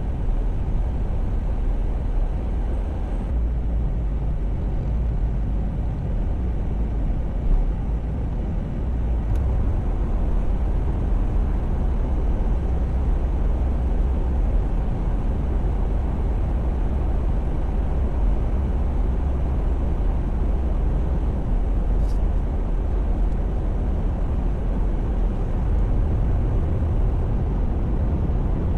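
Steady low rumble of a moving car's road and engine noise, even throughout with no distinct events.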